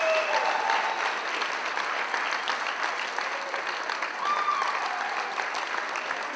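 Crowd applauding, with a few shouts of cheering rising over the clapping. The applause eases off slightly toward the end.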